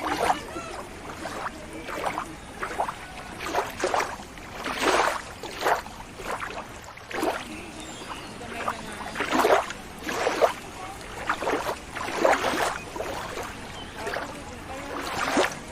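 Water splashing and sloshing in irregular surges, a new splash every half second to a second or so over a steady wash of water.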